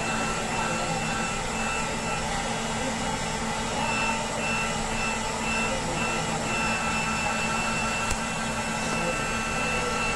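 Hot-air heat gun running steadily, its fan blowing with a steady motor whine, heating the cracked front glass of a phone to loosen it for replacement. A faint click sounds about eight seconds in.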